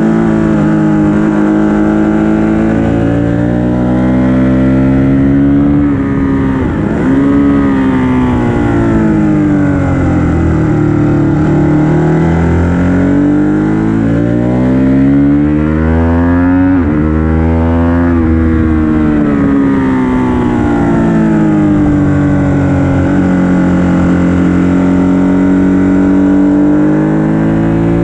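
Ducati 1199 Panigale S's 1198 cc V-twin engine ridden hard on a track lap: pitch climbing as it accelerates through the gears, falling under braking and downshifts, then climbing again, with sudden sharp drops and recoveries about seven and about seventeen seconds in.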